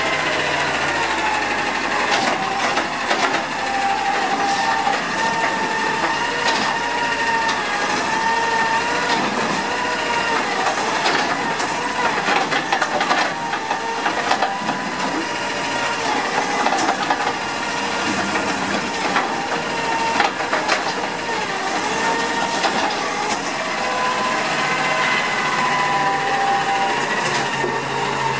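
CNG Autocar ACX garbage truck with a Dadee Scorpion automated side loader working its arm: a hydraulic whine that wavers in pitch over the engine's hum, with knocks and clatter as a cart is lifted and tipped into the hopper around the middle.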